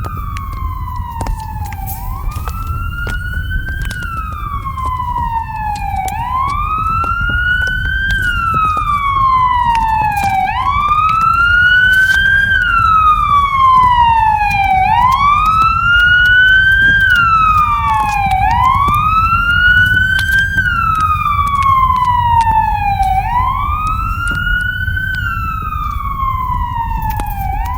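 Fire engine siren wailing, each cycle rising quickly and falling slowly, repeating about every four seconds. It grows louder toward the middle and eases off near the end, over a steady low rumble with scattered sharp cracks.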